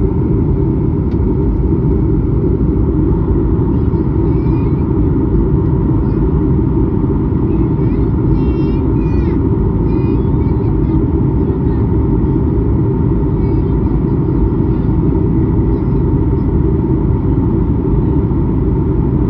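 Airliner cabin noise in flight: a loud, steady low rumble of engines and rushing air, with a faint steady tone above it.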